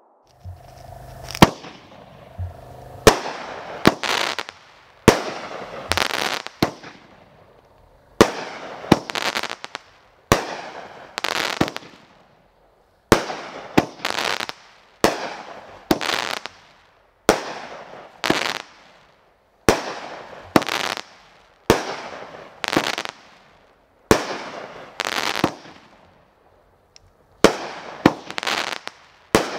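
One Bad Mother In Law 500 gram fireworks cake firing its shots in succession. Each shot is a launch thump followed about a second later by a loud aerial break with crackling that fades out. The last shots come in quicker succession.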